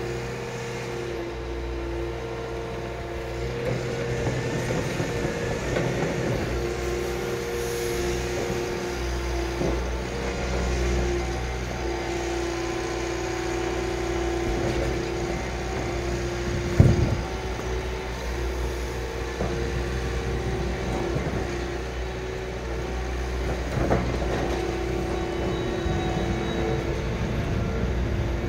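Liebherr 936 crawler excavator running steadily with a constant hum and low rumble as it swings and lowers its boom, with one sharp loud knock a little past halfway and a smaller one later.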